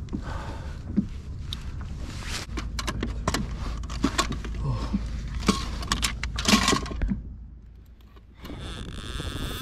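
Handling noise of a freshly caught halibut on a kayak deck: a string of sharp clicks, knocks and scrapes of metal gear, a stringer and a lip-gripper, over a low steady rumble. It goes quiet for a moment near the end, then gives way to a steady hum.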